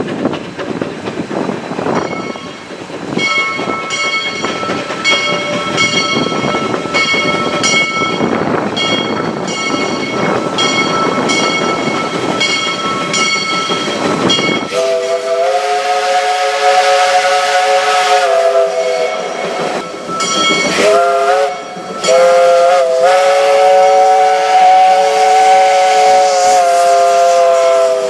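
Willamette #2, a geared Shay-type steam locomotive, working past with a noisy rush of exhaust and steam while a bell rings in steady strokes. About halfway in, its chime steam whistle blows a long blast, then a short one and another long one, louder than everything else.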